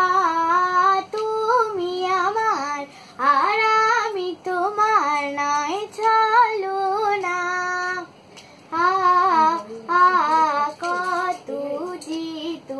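A young girl singing a Bengali song, with no instrument heard, in melodic phrases full of bends and ornaments. The phrases are broken by short breaths, the longest about eight seconds in.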